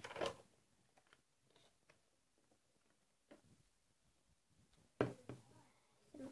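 A few soft knocks and rustles of things being handled on a tabletop, the loudest right at the start and about five seconds in, with fainter taps between.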